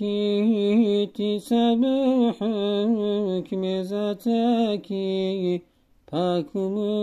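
A single voice chanting verse in a slow, ornamented melody, notes held and bent, with no instruments. It breaks off for a short breath about five and a half seconds in, then goes on.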